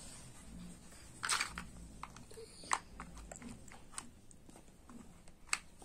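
Plastic toy building blocks clicking and knocking as they are handled and pressed together: a short cluster of clicks about a second in, then single sharp clicks every second or so.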